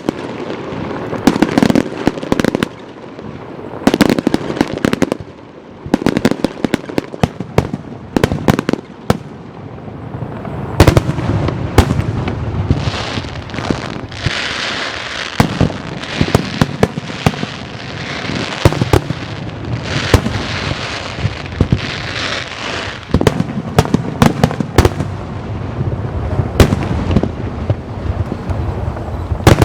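Aerial fireworks shells bursting, with sharp bangs. The bangs come in clumps about every two seconds at first, then give way to a long stretch of dense crackling mixed with bangs from about a third of the way in.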